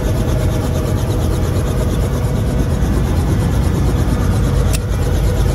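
Helicopter running at idle on the ground with the door open: a loud, steady low rumble of engine and rotor with a fast, even beating chop. A single sharp click comes near the end.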